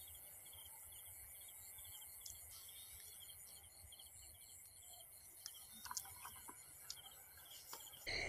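Crickets or similar insects chirping faintly in a steady, evenly repeating rhythm, with a few light clicks over the second half.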